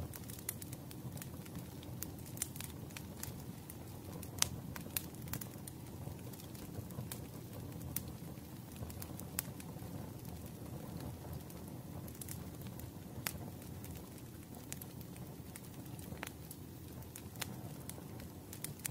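Crackling wood fire: irregular sharp pops and crackles over a steady low rumble.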